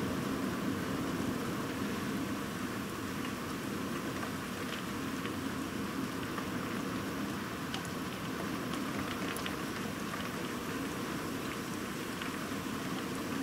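Steady heavy rain falling during a thunderstorm, with scattered sharp drop ticks.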